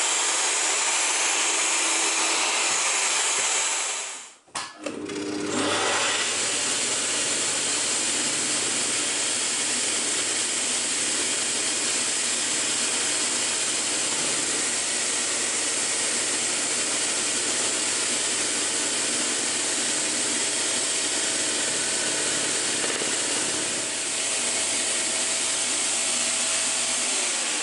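Hegner scroll saw running and cutting stacked 6 mm birch plywood, a steady whirring, buzzing machine noise. It breaks off briefly about four and a half seconds in, then runs steadily and slows near the end.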